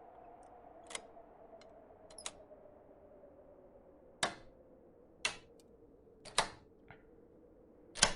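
A handful of sharp, separate clicks and knocks, a second or more apart, over a faint steady hum.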